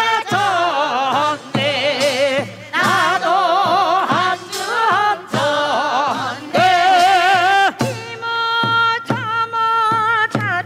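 Korean farmers' work song (nongyo) sung with a strong, wavering vibrato over regular drum beats.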